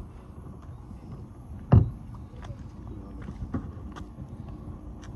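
A single dull thump a little under two seconds in and a softer knock later, over a steady low background rumble, with scattered faint clicks.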